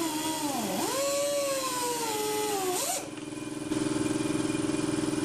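Angle grinder cutting through an old differential carrier bearing to get it off the carrier. Its pitch dips sharply as the disc bites about a second in, recovers, and the grinder stops near the middle. A steady, rapidly pulsing machine hum follows.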